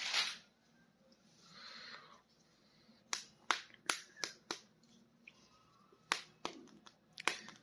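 Small plastic toy figures being handled, giving sharp clicks: five quick ones about three seconds in, then a few more near the end, after a soft rustle.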